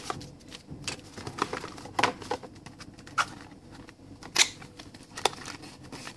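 Cardboard and paper packaging of a phone box being handled: a scatter of light taps, knocks and scrapes of paperboard as inserts and trays are lifted out, the sharpest knock about four seconds in.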